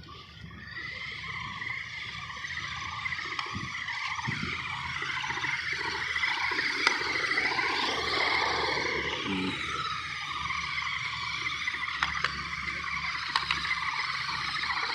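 Toy car running: a steady high-pitched whirring whine that wavers in pitch, building up over the first few seconds.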